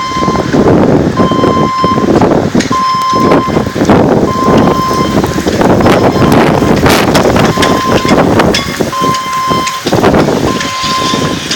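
An electronic beep repeating about every second and a half, one steady high tone each time, over a loud rushing noise of wind and rumble.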